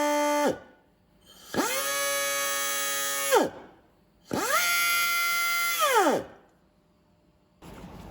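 Air motor of a Nitto Kohki MAG-70 pneumatic angle grinder whining at speed in short runs, each spinning up quickly and winding down in pitch as the air is cut: one run ending about half a second in, then two more of about two seconds each. The motor spins freely without driving the disc, because the gear and pinion teeth are stripped.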